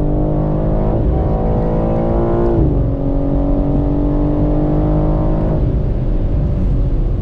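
BMW M3 Competition's twin-turbo inline-six running at speed, heard from inside the cabin. Its note climbs slowly, drops in pitch a few seconds in, holds steady, then falls away near the end.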